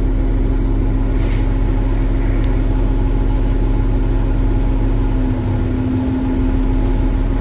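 Large diesel engine of a Caterpillar 980H wheel loader idling steadily, heard from inside the cab, with a short hiss about a second in.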